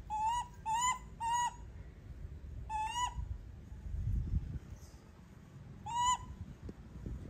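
Baby macaque giving short coo calls: three in quick succession, then one about three seconds in and another about six seconds in. Each call is a brief, clear, slightly rising note that drops at the end.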